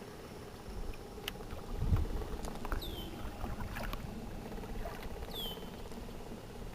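Quiet sounds aboard a small fishing boat: faint water and hull noise under a low steady hum, with a soft knock about two seconds in and a couple of short high chirps later on.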